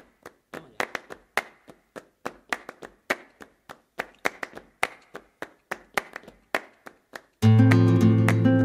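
Rhythmic hand clapping, several sharp claps a second, opening a flamenco-style recording. Near the end, strummed acoustic guitar comes in suddenly and much louder.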